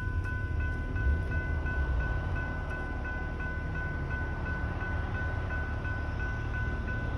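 Railroad crossing's General Signals type 3 electronic bells ringing at about three dings a second, with the gates down and lights flashing for an approaching train. A steady low rumble runs underneath.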